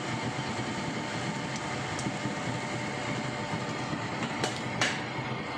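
Sardines in a thick tomato-chilli sauce simmering in a wok on the stove: a steady bubbling and rushing noise, with a few sharp pops near the end.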